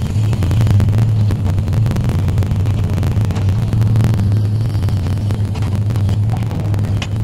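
An engine running steadily at constant speed: a low, even drone with no change in pitch.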